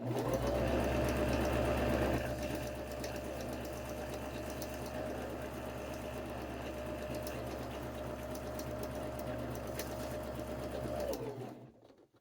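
Electric sewing machine running steadily as it stitches, its motor whine rising as it starts and falling away as it stops about a second before the end.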